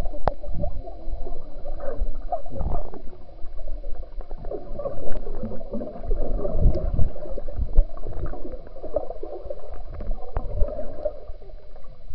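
Muffled underwater bubbling and gurgling of air bubbles and swimmers' movements in pool water, heard with the microphone under the surface, with irregular knocks scattered through it.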